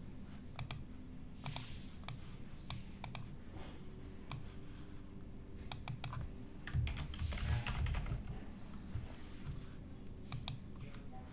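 Typing on a computer keyboard: irregular key clicks, with a louder stretch of handling noise about two-thirds of the way through.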